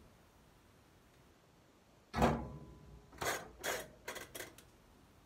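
A sudden loud knock with a brief ring about two seconds in, then several lighter knocks and rattles: a washing machine's lid and controls being handled as it is started.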